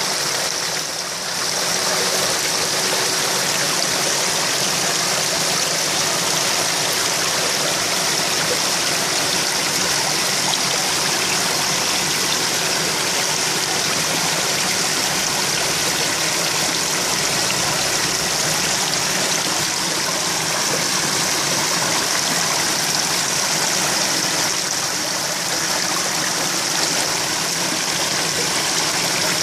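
Koi pond water running and splashing steadily at the surface, a constant rushing hiss with no breaks.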